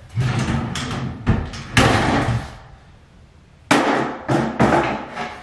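Knocks and clatters of a wooden vanity drawer being handled and taken apart, with wood and hardware bumping several times. There is a quiet spell about halfway through, then more hits.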